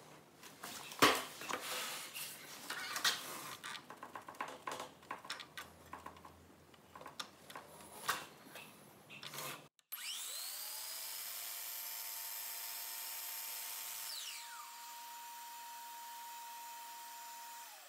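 Knocks and rustles as a length of baseboard is handled on a miter saw. About halfway through, the saw's motor spins up with a rising whine and runs steady for several seconds, then winds down quickly near the end. This is the saw being run to trim the baseboard's straight edge flush with its end.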